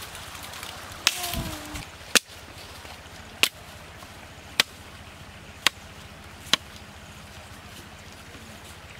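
A knife chopping bamboo: six sharp strikes, roughly one a second, that stop a little past halfway through.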